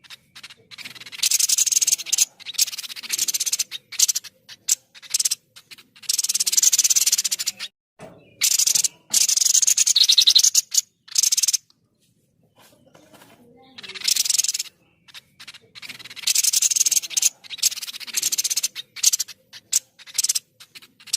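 White-breasted babbler (tepus dada putih) calling vigorously in repeated bouts of harsh, rapid, high-pitched chattering. Each bout lasts from half a second to about two seconds, with a longer pause a little past the middle.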